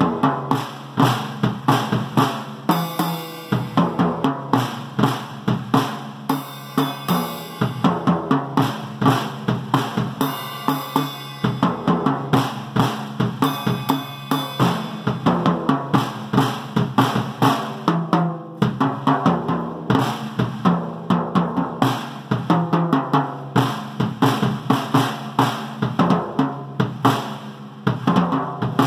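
A drum kit played with sticks in a steady, busy rhythm of bass drum and snare, with no break.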